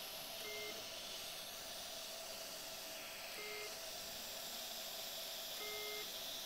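Short electronic beeps from an electrosurgical generator: its activation tone sounds each time the endoscopic knife is energised to cut or coagulate during submucosal dissection. There are three beeps at irregular intervals, the last held a little longer, over a steady hiss.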